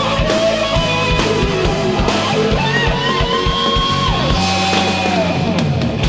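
Rock music with electric guitar, bass and drums. The lead line holds long notes that slide down in pitch.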